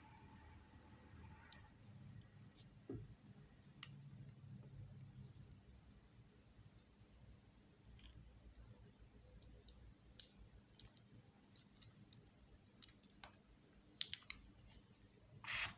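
Side-cutting pliers snipping and prying the metal casing off a zinc-carbon AA battery: faint, irregular clicks and snips, with a longer, louder crackle near the end.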